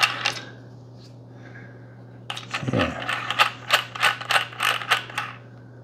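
Tie-down knob of a 75 mm half-ball bowl adapter being turned by hand to tighten it into the base of a fluid video head, making a brief burst of clicks, then after about two seconds a quick run of sharp clicks, several a second, for about three seconds.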